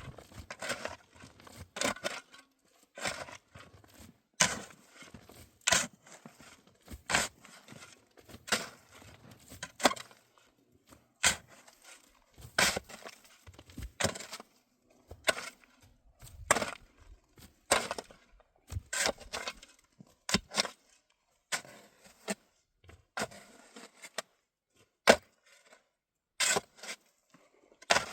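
A long series of sharp knocks or chops, about one a second and uneven in strength, some trailing into a brief scrape.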